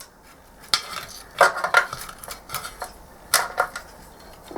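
Irregular sharp clicks and light plastic knocks of wire-harness connectors being handled and plugged onto a CRT monitor's circuit board.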